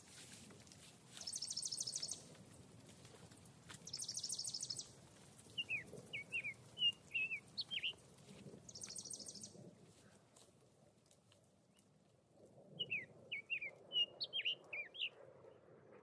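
Wild birds singing: a high buzzy trill repeated three times in the first ten seconds, and a quick phrase of sharp chirping notes given twice, about seven seconds apart.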